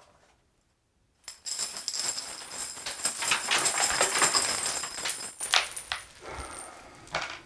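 Jingling, rattling clatter of many small hard objects, starting about a second in and carrying on for several seconds before fading near the end.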